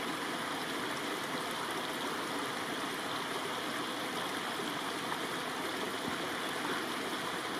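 Spring-fed stream flowing over rocks in small cascades: a steady, unbroken rush and splash of water.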